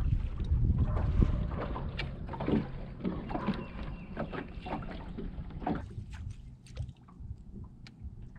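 Wind rumbling on the microphone and water against the hull of a bass boat, heaviest in the first few seconds and then easing, with scattered light clicks and taps.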